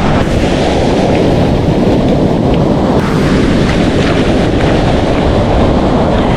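Steady wind buffeting the microphone over the wash of surf breaking on the beach.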